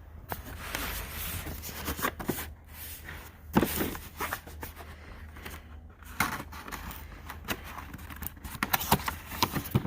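Packaging of a new cordless impact wrench kit being opened and handled: irregular rustling, scraping and clicking.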